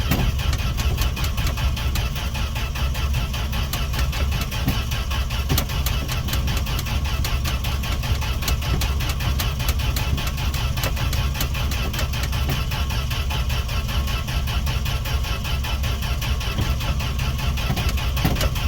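1968 Fargo D100 (Dodge D100) engine cranking over steadily on its starter with a fast, even rhythm, gas poured down the carburettor throat, but not firing or catching.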